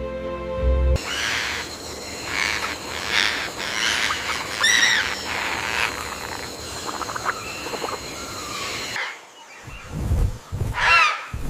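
Music ends about a second in, giving way to an outdoor forest bed of repeated bird calls. Near the end come several louder calls in quick succession.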